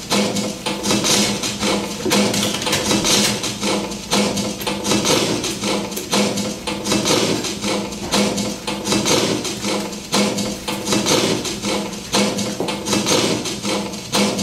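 Paper pages of a book handled right at a microphone and amplified: a dense, continuous run of crackles, rustles and knocks, over a steady low hum.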